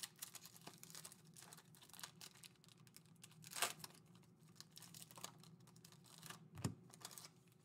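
Faint crinkling and tearing of foil trading-card pack wrappers being ripped open by hand, with scattered light clicks and a couple of sharper crackles, over a faint steady hum.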